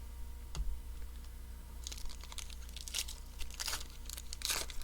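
A trading card pack's wrapper being torn open and crinkled: a single click, then a run of quick rips starting about two seconds in, the loudest near the end.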